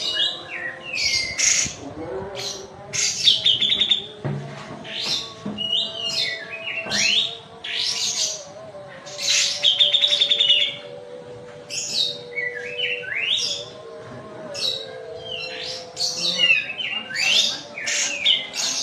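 A kapas tembak, a bulbul, singing in quick bursts of sharp, high chirps and fast rattling trills, with short pauses between phrases. A faint steady hum runs underneath.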